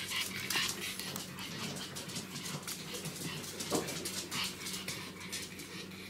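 Small dogs whimpering and whining excitedly, with short irregular yips.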